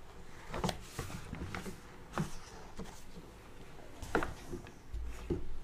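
Sheets of paper being handled and shuffled on a desk: a series of short, soft rustles and taps, the strongest a little past four seconds in.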